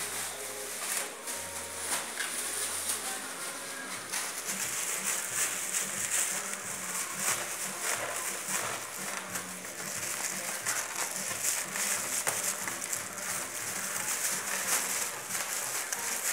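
A plastic bag rustling and crinkling as young Cocker Spaniel puppies bite and tug at it, with many small clicks and scuffs. The crinkling grows denser after about four seconds.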